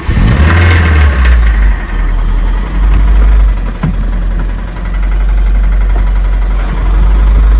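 Toyota MR-S's swapped-in 2ZZ four-cylinder engine starting, its revs flaring for a second or two and then settling to a loud idle with a clicking, rattling knock. The owner puts the knock down to a failed crankshaft bearing.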